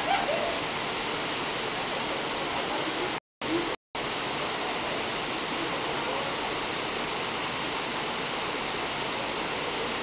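Waterfall and whitewater rapids rushing steadily. The sound cuts out completely twice, briefly, a little past three seconds in.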